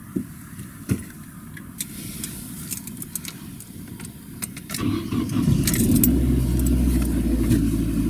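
Keys jangling and small clicks of handling, then about five seconds in a car engine starts and settles into a steady idle, heard from inside the car.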